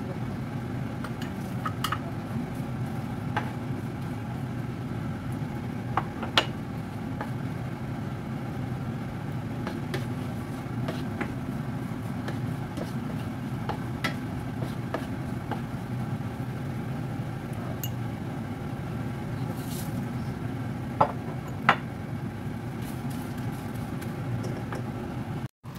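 Steady hum of a kitchen range hood fan over chopped garlic sizzling in oil in a frying pan, with a few sharp clinks of a utensil against the pan.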